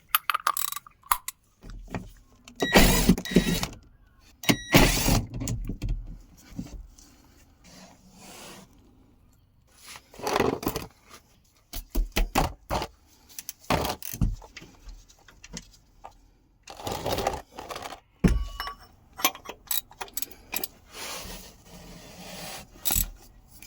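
Hand tools and metal parts clinking and clattering in an irregular run of knocks, some with a brief metallic ring, with short quiet gaps between.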